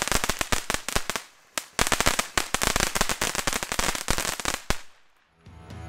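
NICO Feuertonne fountain battery burning with loud, dense crackling: a rapid stream of small pops from its crackling stars. It eases off briefly about a second in, picks up again, and cuts off suddenly near the end.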